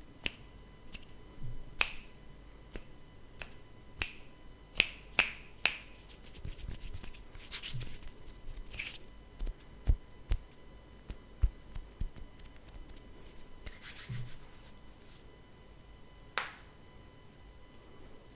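Hands making sharp finger snaps and clicks at an uneven pace, with two stretches of soft rubbing in between.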